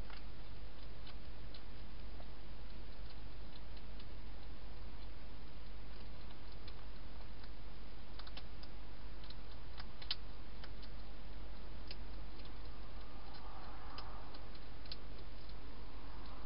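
A European hedgehog eating dry food in a plastic feeding box: irregular sharp crunching clicks, most frequent in the second half, over a steady low hum and hiss.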